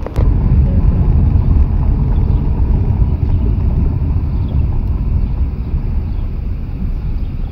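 Steady low rumble of a car driving, road and engine noise mixed with wind on the microphone. A click just after the start, after which the rumble is louder.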